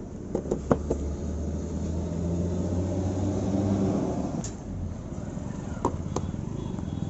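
A motor vehicle engine running close by, swelling to its loudest about four seconds in and then dropping away. Over it come a few sharp metallic clicks and taps from work on the motorcycle engine, a cluster near the start and two more near the end.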